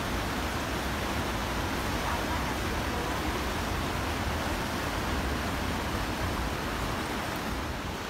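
Waterfall cascading over rocks into a pool: a steady, unbroken rush of falling water.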